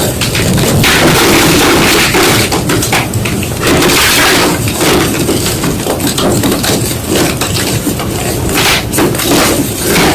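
White gym chalk being crushed: a dense run of loud, dry, irregular crunches one after another.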